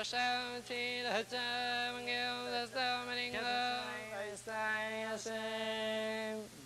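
Zoroastrian priest chanting an Avestan recitation in a near-monotone, holding each syllable on one steady pitch with short breaks between phrases; the chanting stops just before the end.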